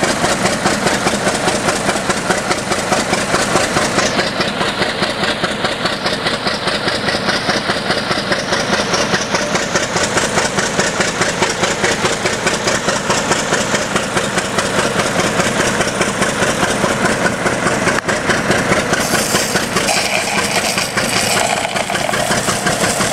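1925 American LaFrance Type 75 fire engine's six-cylinder engine running steadily under load, with a rapid even firing beat as it drives the pump drafting water. Near the end the hiss of the hose stream from the nozzle joins in.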